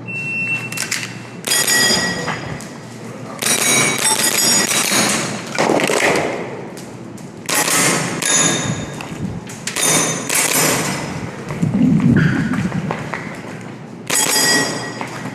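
Airsoft gas-blowback pistol (Tokyo Marui Glock 17 Gen4) firing in short strings of shots a second or two apart during a course of fire, several hits followed by a brief metallic ring from steel targets.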